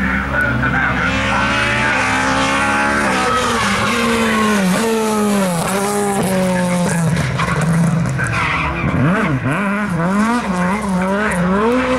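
Ford Escort rally car's engine revving hard, its pitch climbing, dropping back and then rising and falling quickly again and again near the end, with tyre squeal as the car slides.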